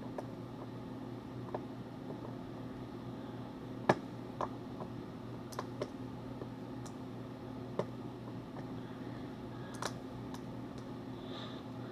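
Irregular light clicks and taps from a phone being handled, the sharpest about four seconds in, over a steady low electrical hum.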